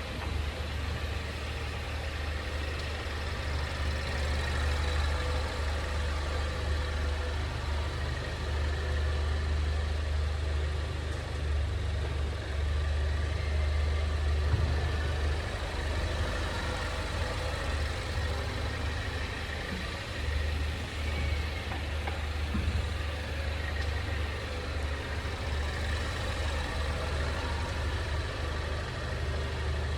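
Steady low drone inside the cabin of a 2020 Ford Mondeo wagon, with one brief knock about halfway through. The sharper underbody noise the owner is chasing is not marked in this stretch.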